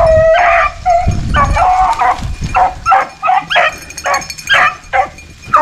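A pack of rabbit hounds baying in a rapid, overlapping string of short calls with a longer one now and then: the dogs giving tongue as they run a cottontail's trail.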